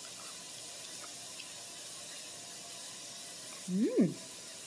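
A person's closed-mouth "mmm" while tasting food, one short hum that rises and falls in pitch about four seconds in, over a steady hiss that runs throughout.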